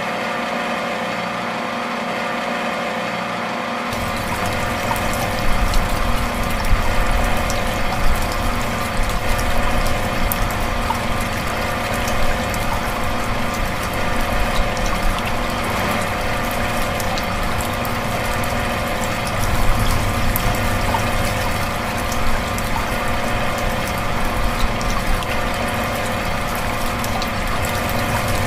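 Small DC electric motor running steadily with a whine of several steady tones, turning a belt-driven miniature water pump. About four seconds in, the rush and splash of pumped water flowing out joins it.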